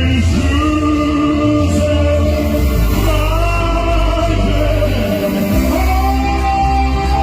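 Live band music with singing; the voice holds long notes, stepping up in pitch a few times.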